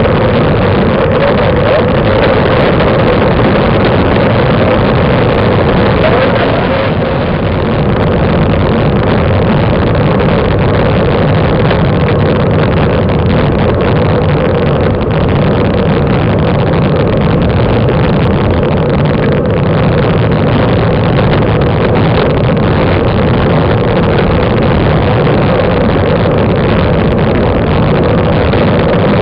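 Loud, steady rush of wind and road rumble picked up by a camera mounted on a moving road bicycle, with a constant drone underneath and a brief dip in level about seven seconds in.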